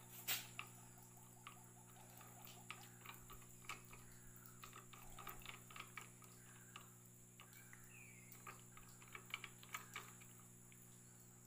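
Near silence with faint, scattered clicks and taps of a smartphone being handled and seated in a Motowolf motorcycle phone holder's clamp. There is one sharper click about a quarter second in, over a faint steady hum.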